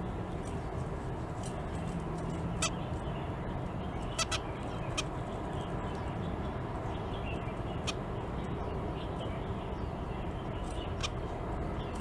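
Zebra finches giving a handful of short, sharp calls, two of them in quick succession about four seconds in, over a steady low hum.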